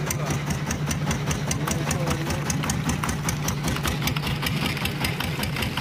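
Fishing boat's engine running steadily, with a fast, even knocking beat.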